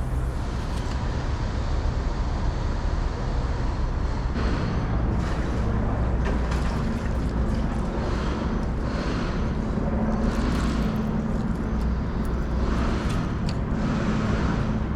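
Steady low engine rumble, with a hum that grows stronger about five seconds in, and short swishing noises every second or so.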